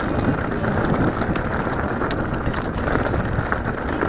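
Mountain bike rolling along a rough dirt trail: steady tyre noise with scattered clicks and rattles from the bike, and wind buffeting the microphone.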